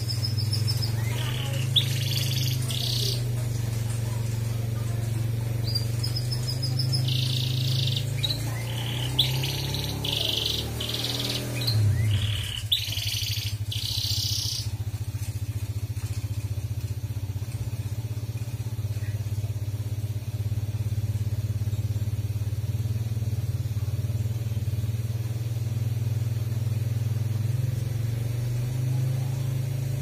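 Domestic canary singing, bursts of high chirps and quick trills for the first half, then falling silent about halfway through. A steady low hum runs under it throughout.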